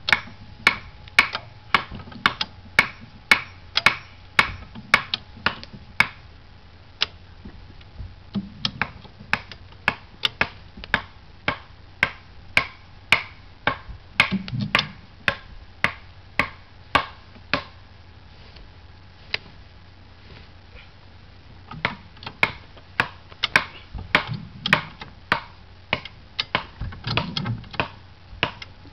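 High-lift farm jack being pumped to raise a trimaran's heavy side float: a sharp metallic click at each stroke of the handle as the lifting pins catch on the steel bar, about two clicks a second, stopping for a few seconds past the middle, with now and then a low thud.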